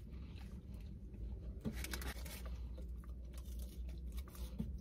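A person chewing fast food, with soft crunches and a few quiet crackles from handling the food and its paper wrapping.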